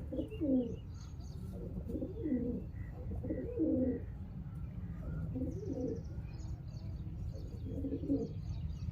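Pigeons cooing in a string of repeated low, wavering phrases over a steady low hum, with faint high chirps joining in the second half.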